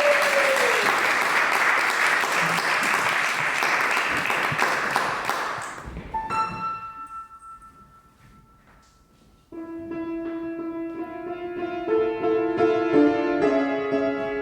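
Audience applauding for about six seconds, fading out. A piano then sounds a couple of notes that die away, and after a short pause, about nine and a half seconds in, starts playing sustained chords: the opening of the opera's piano accompaniment.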